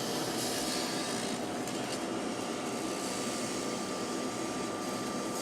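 Steady hiss with a faint, even hum: kitchen background noise, with no clatter or stirring heard.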